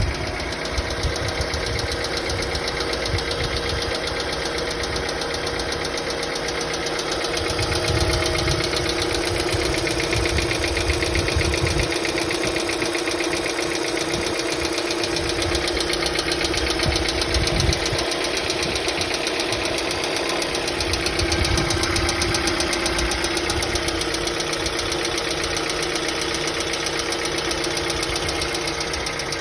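Hyundai Accent II petrol engine running cold, with a fast, even ticking clatter from the valvetrain: hydraulic valve lifters knocking because they have not yet filled with oil on a cold engine.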